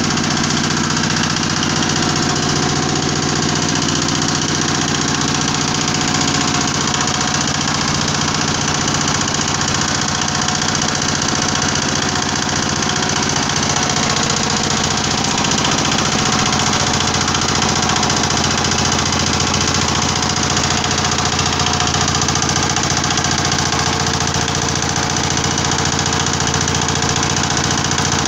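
Mini screw press for crude palm oil running steadily under load, its drive, gearing and turning screw making a loud, even mechanical noise that does not change.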